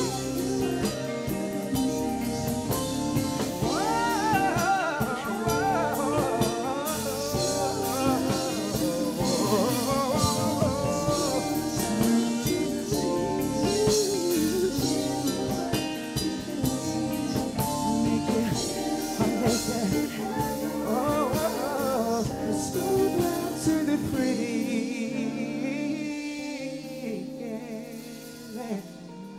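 A live band with a singer plays a slow R&B love song: drum kit, guitar and bass under wordless, wavering vocal runs. The music thins out and gets quieter over the last few seconds as the song winds down.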